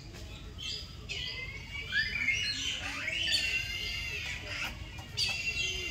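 Several birds calling over one another in a busy run of chirps and squawks, with rising and falling whistled notes, busiest in the middle.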